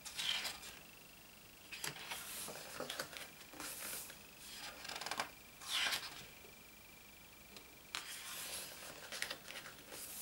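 Thick paper pages of a large photobook being turned and pressed flat by hand: a series of short paper swishes and rustles, about five in all.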